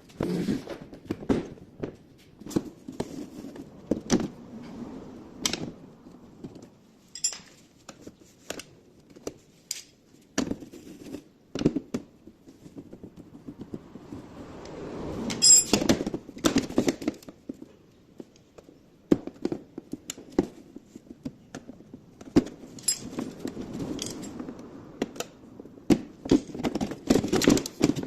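Irregular clicks, knocks and short metallic rattles of hand tools and parts being handled during work on a car door's window regulator, with busier clusters of clatter about halfway through and near the end.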